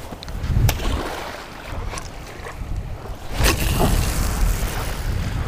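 Wind buffeting the microphone, a steady low rumble that swells and eases, with faint surf behind it. There are a few sharp clicks and one louder knock about three and a half seconds in.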